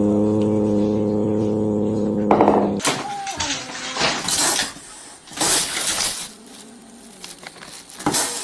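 A steady pitched hum that cuts off abruptly about three seconds in, followed by a run of short, sharp crashing noises.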